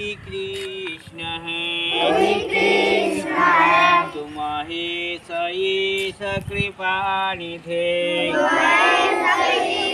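A group of schoolchildren singing a morning prayer together in unison, drawing out long held notes.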